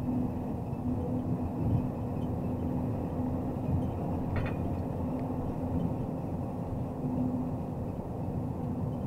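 MAZ truck crane under way: a steady diesel engine drone with road noise, holding an even pitch, with one short tick about four and a half seconds in.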